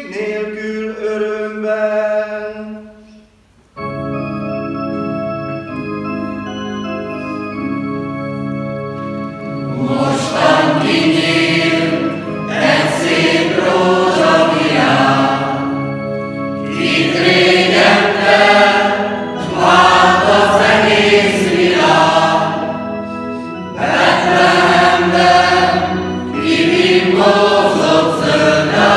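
A mixed choir sings a Hungarian Christmas carol; the phrase fades out about three seconds in. After a brief pause, an electronic keyboard plays held organ-like chords as an introduction, and the choir joins in with the keyboard accompaniment about ten seconds in.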